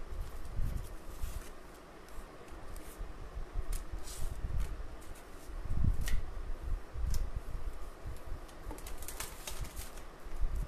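Craft cards and paper being handled and laid down on a plastic sleeve: a few short crisp rustles and taps, a cluster of them near the end, over a low rumbling handling noise.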